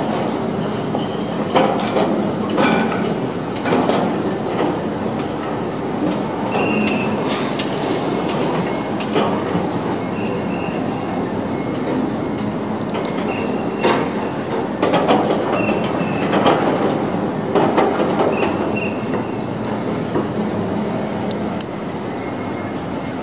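Sumitomo SC500 crawler crane running steadily as it handles a steel plate hung on its chain, with repeated metallic clanks and several short high squeals over the machine's drone.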